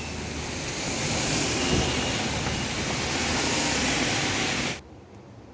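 Heavy rain falling, a steady hiss that cuts off suddenly near the end.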